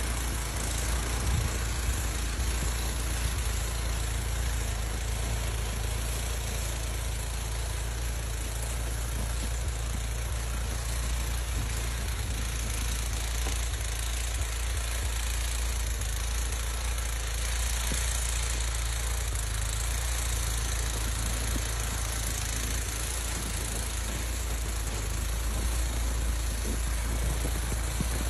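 A vehicle engine running steadily with a low rumble, towing a plastic sled over snow, with a constant hiss over it.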